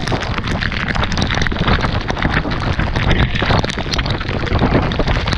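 Strong gusting wind buffeting the camera microphone in a tropical-storm rain squall, a heavy steady rumble, with many sharp ticks of raindrops striking the camera.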